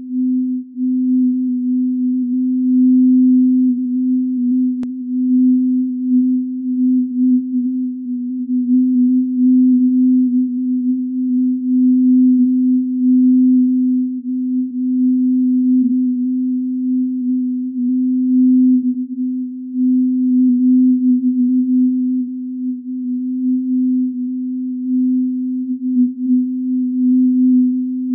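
A single synthesized pure sine tone, low in pitch, held at one steady pitch while its loudness wavers up and down: the electronic output of a self-adaptive sonification installation.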